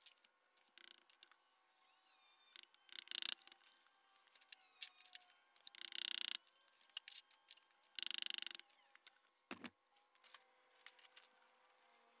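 Hammer striking a punch to drive the roll pin out of a Subaru 5-speed transmission's shift linkage joint: sharp metal taps every couple of seconds, with lighter metallic clinks between.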